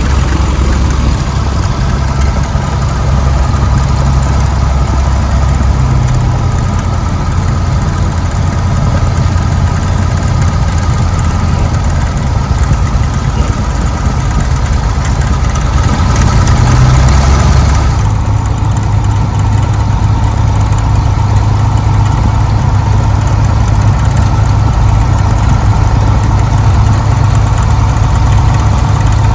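A 1951 Cessna 170A's piston engine and propeller running at low taxiing power, heard as a steady drone from inside the cockpit. The engine note shifts about two-thirds of the way in, briefly louder, then settles.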